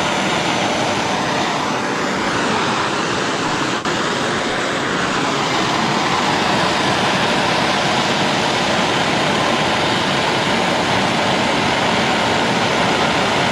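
Steady, loud rushing of a heat tool playing over paint-coated steel wrenches to cure the paint coating.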